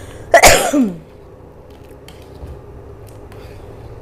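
A short burst of a person's voice, falling in pitch, about half a second in. It is followed by a metal ladle scraping and tapping lightly in an aluminium wok of simmering coconut-milk stew as it is stirred.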